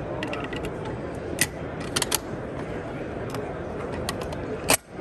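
Scattered metallic clicks and clacks of a bolt-action rifle and its detachable box magazine being handled and the magazine fitted into the magwell, the loudest a sharp click near the end. A steady background hubbub runs underneath.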